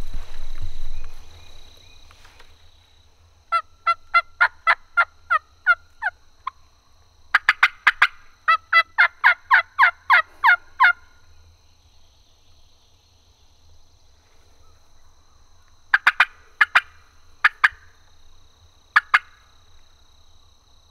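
Turkey yelping: two long runs of sharp, evenly spaced notes, about three or four a second, then a few shorter bursts of notes later on.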